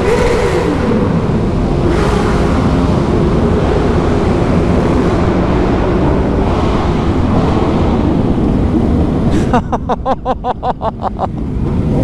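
Several motorcycle engines revving hard in a tunnel, loud enough to overload the helmet microphone, with wind on the mic. Near the end the sound stutters rapidly for under two seconds, about eight pulses a second, then steadies.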